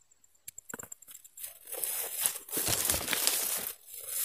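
Palm fronds and grass rustling and crackling as someone moves through them, in two bursts of about a second each from about a second and a half in, with a few light clicks near the end.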